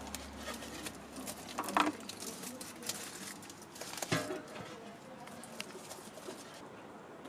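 Foil-wrapped balls being handled and set into a chest freezer's wire basket: light crinkles, clicks and knocks, with two louder sounds about two and four seconds in.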